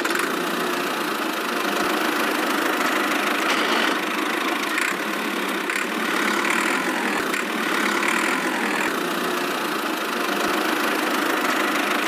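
Toy tractor's small electric drive motor and gears running steadily as it pulls a loaded trailer across sand.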